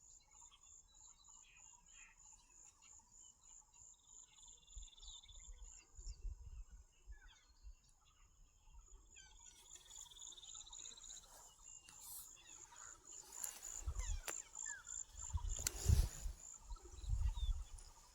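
Insects chirping in a fast, even, high-pitched pulse, with a second insect trilling now and then. In the second half come a few dull thumps and knocks, the loudest near the end.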